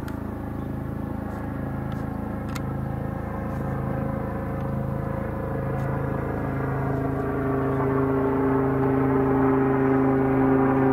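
Low-flying helicopter overhead: a steady engine and rotor hum made of several held tones, growing steadily louder.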